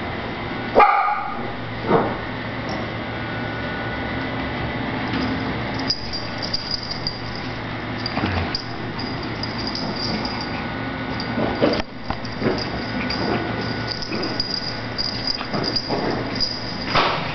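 Shih Tzu puppies play-fighting, giving a few short barks and yips scattered through, over a steady background hum.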